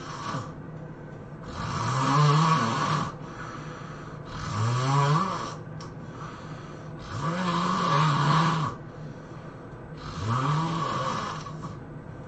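A person snoring loudly: four long snores, about one every three seconds, each with a rising then falling pitch.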